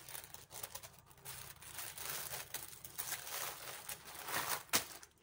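Plastic packaging crinkling and rustling on and off as a wrapped parcel is handled and opened, with one sharper crackle near the end.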